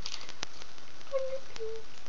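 Handling noise close to the microphone: soft rustling and a few sharp clicks, with two short steady notes about a second in, the second a little lower than the first.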